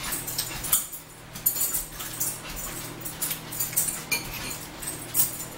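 Close-up eating sounds: chewing, wet mouth smacks and small clicks coming irregularly, several a second, over a steady low hum.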